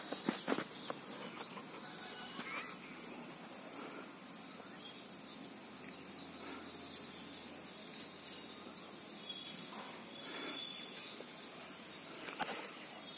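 Insects chirring steadily in one high-pitched continuous tone, with a few soft knocks and rustles scattered through.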